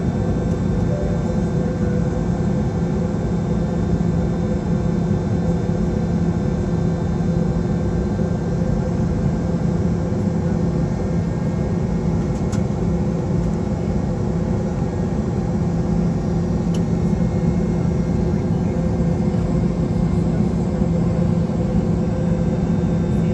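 Steady cabin drone inside a Boeing 717-200 airliner: an even rush of engine and air noise with a low, constant hum and a couple of fainter steady tones above it.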